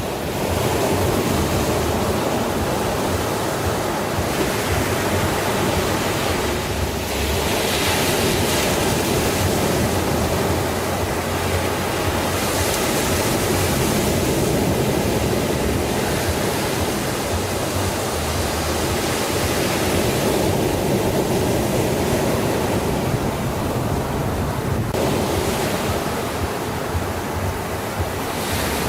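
Ocean surf: a continuous wash of waves, swelling and easing every few seconds.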